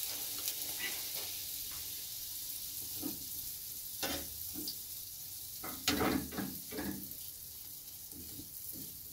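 Hot oil sizzling in a frying pan, a steady hiss, with a few sharp knocks and clinks in the middle.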